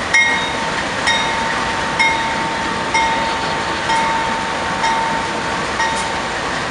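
A railroad bell striking about once a second, each strike ringing on, over the steady rumble of a passing train.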